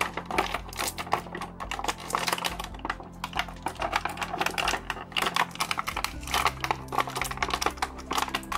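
Clear plastic blister packaging crinkling and crackling as hands handle it, a dense, irregular run of small sharp crackles.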